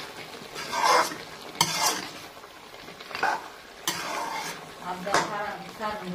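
A metal spatula scraping and stirring chicken curry in a metal kadai, about six separate strokes with a faint ring of metal on the pan, over the sizzle of frying.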